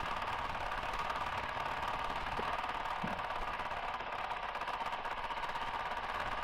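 Honda CRF450RL's single-cylinder four-stroke engine running steadily at low revs as the bike cruises slowly, a rapid even train of exhaust pulses.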